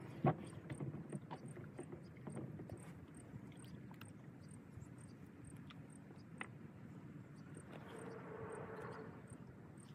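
Kayak being paddled: water sloshing with irregular light knocks, the sharpest near the start.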